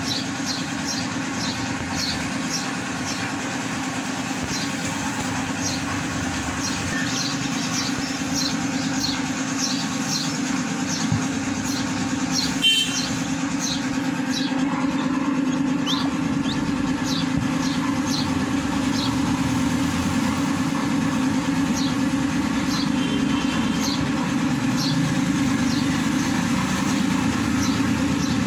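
Baby ducklings and chicks peeping in short, high chirps, one or two a second at first and fewer later, over a loud steady mechanical hum. A single short knock about halfway through.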